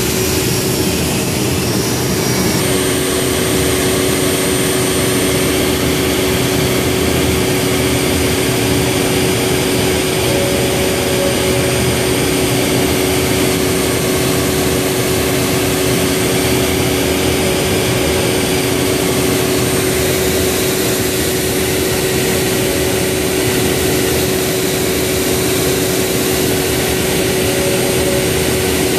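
CNC router spindle running steadily with a constant whine while a V-bit engraves small lettering into a wooden workpiece.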